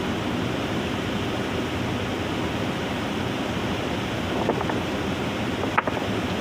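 Fast mountain river rushing over boulders, a steady roar of running water, with a couple of brief clicks about four and a half and near six seconds in.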